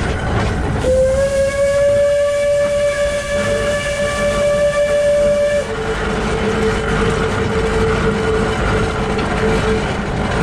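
Steam whistle sounding one long blast of about five seconds, starting about a second in, over the steady running noise of the Shay geared locomotive SL-31's trucks and bevel gears. A fainter, slightly lower steady tone follows for about four seconds.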